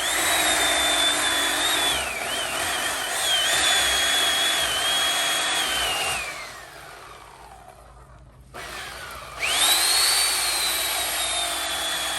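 Corded electric chainsaw running with a high motor whine that dips in pitch as it loads up in the cut. About six seconds in it is released and winds down, falling in pitch; a few seconds later it is started again, the whine rising back up, and it runs on.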